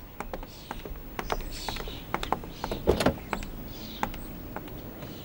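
Someone climbing into a car through its open rear door: scattered light clicks and knocks from the door and body, the loudest about three seconds in.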